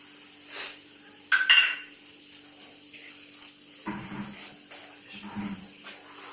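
Tulsi leaves frying and sizzling in hot oil in a pan while they are stirred, the utensil clattering against the pan. The loudest sound is a ringing clink about one and a half seconds in, with softer knocks later.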